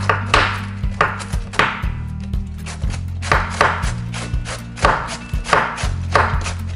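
A hand-held cabbage shredder scraping down the face of a raw white cabbage head, shaving it into fine shreds. The strokes are rhythmic, about two a second.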